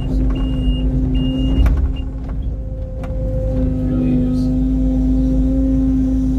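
Mini excavator's engine and hydraulics running under load as the full bucket is lifted and swung over the dump truck, with a steady hum that sags for a second or two after about two seconds in and then picks back up. A high beep repeats in regular short pulses over the first couple of seconds and then stops.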